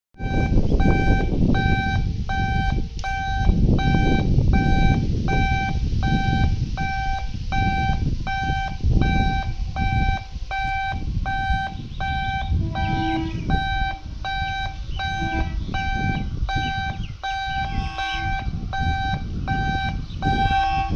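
Electronic warning beeper sounding steadily about twice a second, a single high-pitched beep repeated over and over, with a low rumbling noise underneath.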